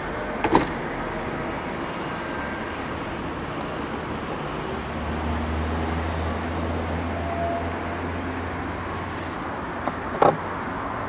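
Two sharp clicks over steady outdoor background noise: a double knock about half a second in, and near the end the click of the Audi A8's fuel filler flap popping as it is pressed open by hand. A low hum rises in the middle.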